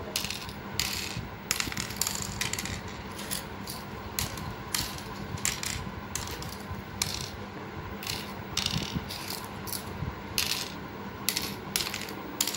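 Cowrie shells dropped one at a time into the pits of a pallanguzhi board, making small clicks about once or twice a second as the shells are sown from pit to pit.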